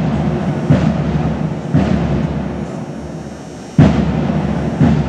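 Marching bass drum struck in heavy single beats, each ringing on: two about a second apart, a pause of about two seconds, then two more.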